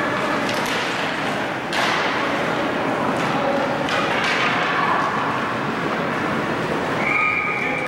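Ice hockey game sound in an arena: a steady hubbub of spectators and players, with a sharp knock from the play just under two seconds in and a lighter one about four seconds in. A short held high call rises over it near the end.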